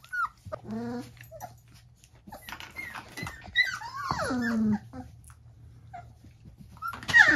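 Young puppies whimpering in short high calls while they play-wrestle, with one longer whine falling in pitch about four seconds in.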